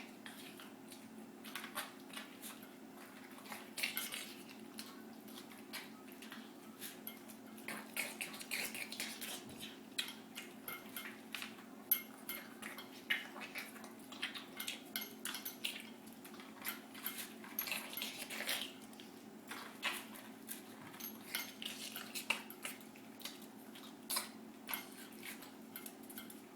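A pet eating greedily, with many irregular crunching, clicking chews and clinks against its dish, over a steady low hum.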